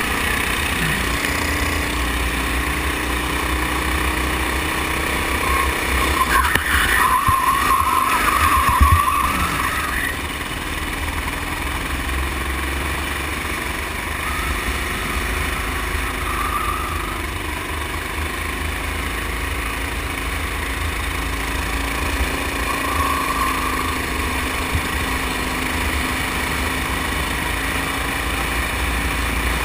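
Go-kart engine running at speed, its pitch rising and falling with the throttle, over a steady low rumble of wind on the microphone. It grows louder for a few seconds about six to ten seconds in.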